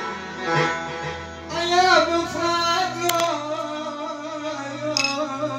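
A man singing an Arabic song over recorded music with a plucked string instrument. The voice comes in about a second and a half in, with long, wavering held notes.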